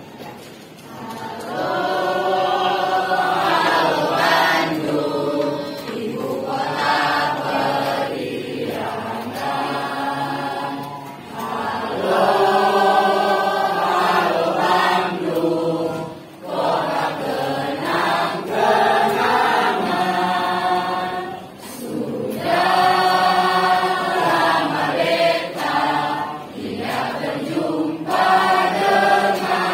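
A class of students singing together as a group without accompaniment, in sung phrases a few seconds long with short breaks for breath between them.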